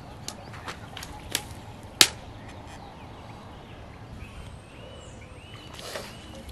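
Footsteps in gumboots crunching through frost-covered grass, with a handful of sharp snaps, the loudest about two seconds in. A small bird chirps a few short arching notes near the middle.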